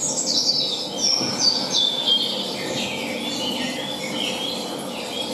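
Birdsong used as a stage sound effect for a spring forest scene: a quick run of chirps that steps down in pitch over about three seconds, then fainter scattered chirping.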